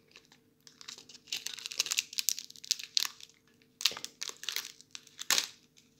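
Thin plastic zip bag crinkling in short bursts as it is handled and squeezed in the jaws of a handheld mini heat sealer. A faint steady hum runs underneath.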